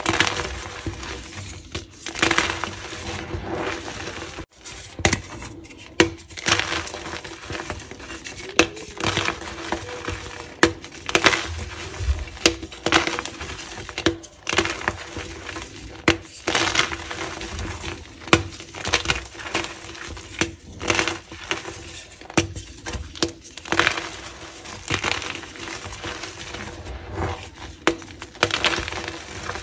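Blocks of reformed (pressed) gym chalk snapped and crushed between the hands: an irregular run of dry crunches, cracks and crumbling as pieces and powder fall into a pile of chalk dust.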